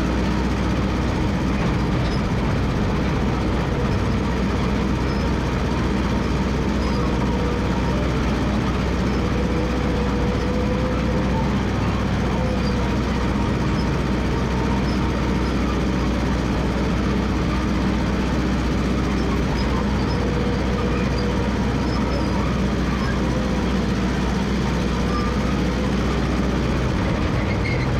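Massey Ferguson MF 300 crawler dozer running steadily, its engine note held even, with the rattle of its steel tracks.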